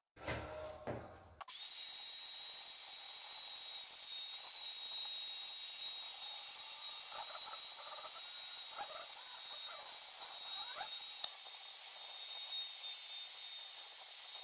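Electric plunge router running at a steady high whine while it cuts into a raintree wood slab, starting about a second and a half in, with the cutting noise rising and falling in the middle and a single sharp click near the end.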